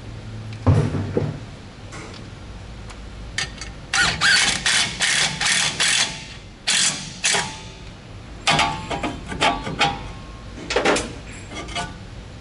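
Stuck rear brake rotor on a Toyota Tundra being worked loose and pulled off the hub: bursts of quick metallic clicks and clanks, metal on metal, in several spells.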